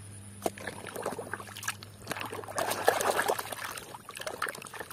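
A muddy plastic toy tank scrubbed with a scrubbing brush in a basin of soapy water: scratchy brushing and water sloshing, busiest around the middle.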